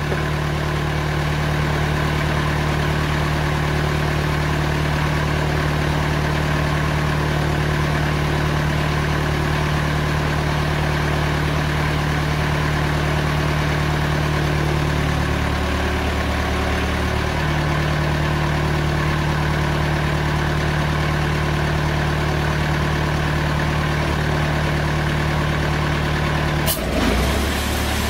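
TimberKing 2000 band sawmill's engine running steadily, its blade set to start a resaw cut through an ash cant. Near the end there is a sharp knock and the engine's note changes.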